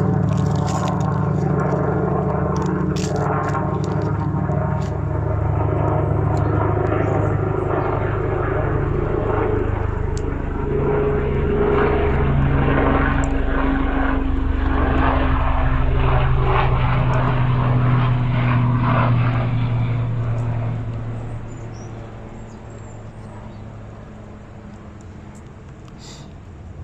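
Helicopter flying overhead: a loud, steady low drone that fades away about twenty seconds in.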